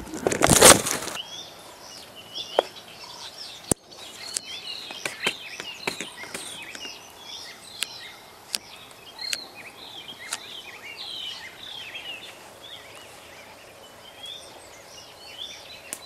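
Many small birds chirping and twittering in quick short calls. A loud rushing noise lasts about a second at the start, and a few sharp clicks stand out, the clearest about four seconds in.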